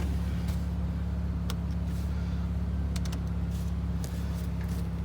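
2013 Chrysler Town & Country's 3.6-litre V6 engine idling steadily, with a few light clicks.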